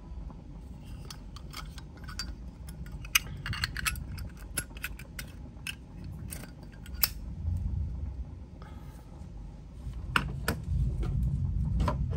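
Zippo lighters handled between the fingers: an irregular run of sharp metallic clicks and clacks of the hinged lids flipping open and snapping shut, a few much louder than the rest.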